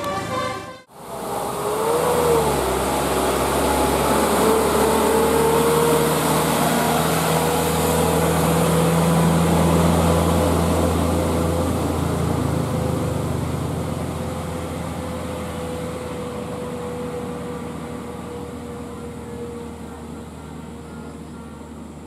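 Heavy cargo truck's engine running as the truck drives off around a bend. It grows louder for about ten seconds, then fades steadily as the truck pulls away. In the first second a horn is cut off suddenly.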